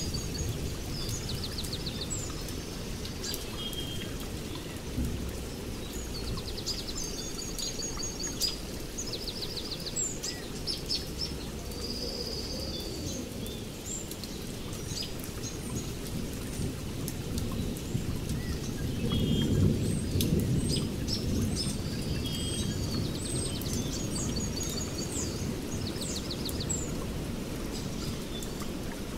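Steady rain with patters of drops, and a rumble of thunder that swells about two-thirds of the way through. Birds chirp and trill over the rain throughout.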